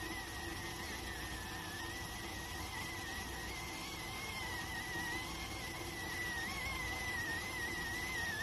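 Steam whistling from an electric cooker as it cooks: one steady high whistle that wavers slightly in pitch, over a soft hiss.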